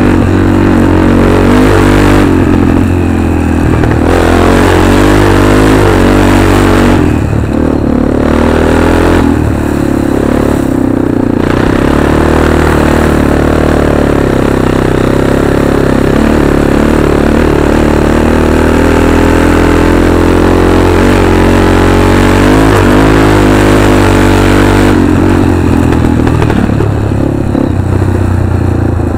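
Arctic Cat 500 ATV's single-cylinder four-stroke engine running under throttle while riding, its pitch rising and falling as the throttle opens and eases, with a short let-off about seven seconds in.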